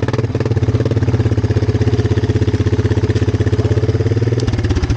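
Honda TRX300 four-wheeler's single-cylinder engine idling with an even chugging beat, then dying near the end, its beats slowing as it stops.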